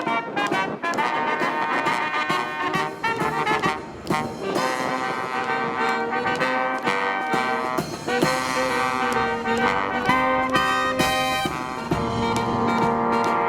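Brass marching band playing a tune, with trumpets and trombones holding pitched melody notes over regular percussion strokes.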